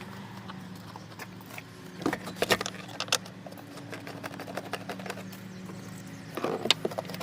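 Scattered sharp clicks and clacks, bunched about two seconds in and again near the end, over a steady low hum.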